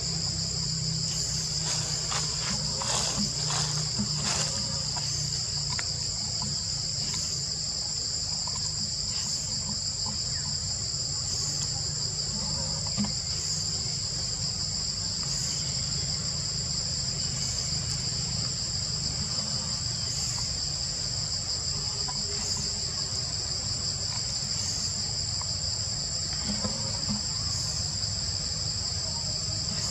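Steady high-pitched insect chorus, a continuous drone on two high pitches, with a low steady rumble underneath.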